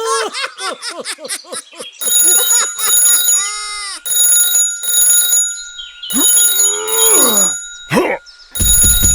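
Laughter for the first couple of seconds, then an alarm ringing in repeated bursts of about half a second with short gaps between them.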